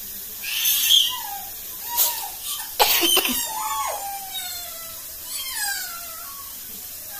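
A series of drawn-out animal calls, each falling in pitch and lasting about a second, with a short loud noise about three seconds in.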